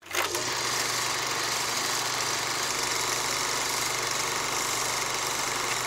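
Vintage cine film mechanism running with a steady mechanical whir and a low hum. It starts with a click.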